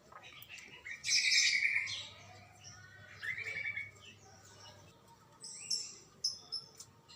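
Black-naped oriole (kepodang) calling in short, harsh, buzzy bursts, the loudest about a second in and another about three seconds in, followed by a few thin, high chirps.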